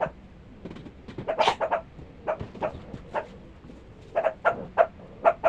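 An animal giving short, high yips in irregular runs, some single and some in quick clusters of two to four.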